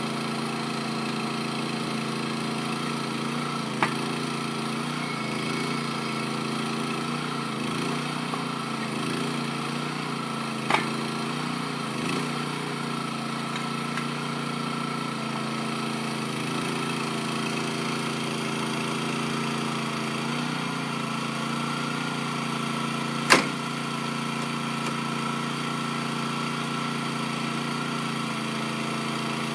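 The line trolley's small petrol engine runs steadily, driving the wheels through its hydraulic circuit. Its pitch wavers for a stretch in the first two-thirds. Three sharp clicks cut in, the loudest about two-thirds of the way through.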